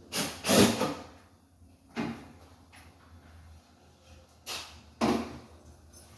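A few short knocks and scrapes of things being handled: a longer scraping clunk in the first second, a knock at about two seconds, and two more close together near the end.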